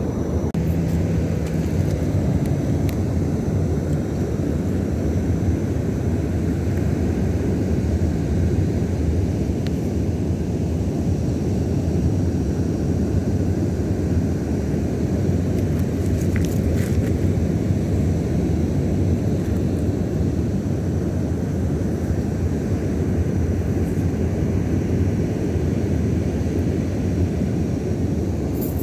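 Steady low rumble of wind buffeting the phone's microphone outdoors, unbroken and without rises or pauses.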